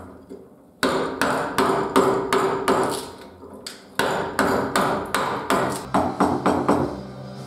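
Wooden mallet driving a carving gouge into cherry wood, a steady run of sharp knocks at about three blows a second. There is a short pause about a second in and another around three seconds in.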